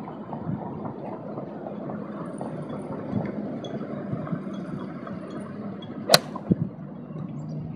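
A golf iron strikes a ball off a driving-range mat, giving one sharp click about six seconds in, over steady background noise.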